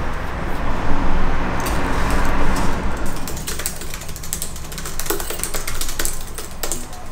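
Irregular clicks of typing on a keyboard, starting about three seconds in, after a steady low rumble with hiss that fades out.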